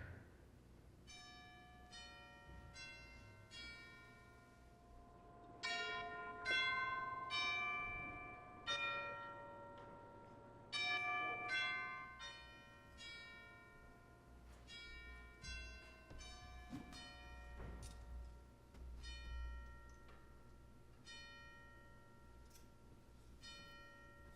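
Bells playing a slow tune, one struck note after another, each ringing on as the next sounds. The middle stretch is louder, with several notes struck together.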